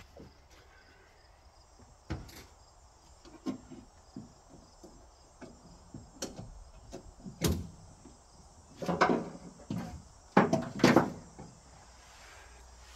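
Heavy-duty DeWalt ratchet tie-down straps being released and handled: scattered clacks and knocks, then a busier, louder run of clatter and rattling about nine to eleven seconds in.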